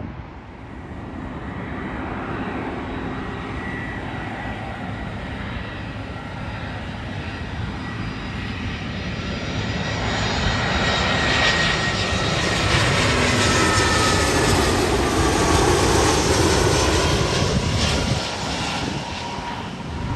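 Airbus A320-family jet passing close overhead on its landing approach. The engine noise builds steadily to its loudest in the second half, with a high whine that slides down in pitch as the aircraft goes by, then falls away near the end.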